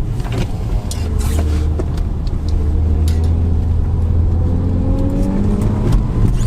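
Lexus IS200's straight-six engine and road rumble as the car drives on a brake test, the engine note climbing in pitch over the last few seconds.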